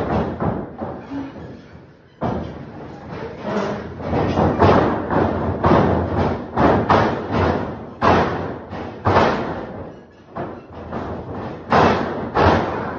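A run of heavy thuds and slams, a dozen or more at irregular intervals, each sudden and loud over a steady background noise.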